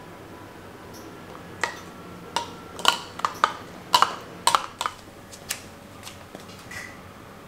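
Metal spoon clinking against a glass mixing bowl while stirring a sauce: about a dozen sharp, ringing clinks in quick succession that die away about halfway through.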